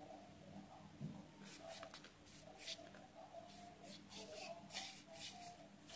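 Faint, irregular scuffing and rubbing of a tissue wiped along the edges of a mobile phone's frame, with a low steady hum underneath.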